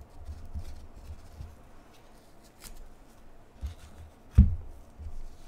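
Gloved hands handling cardboard baseball cards: quiet rustling, light taps and soft knocks against the table, with one dull thump about four seconds in.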